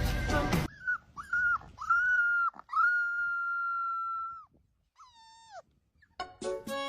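A dog whining in a run of high calls: a few short whines, then one long steady whine of about a second and a half, and a last one that falls in pitch.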